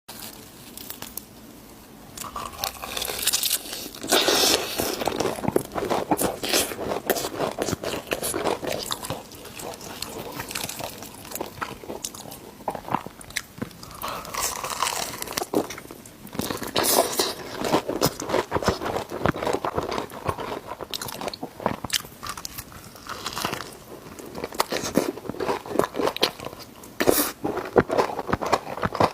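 Chicken being bitten and chewed, with irregular crunching and mouth sounds throughout and louder clusters of bites every several seconds.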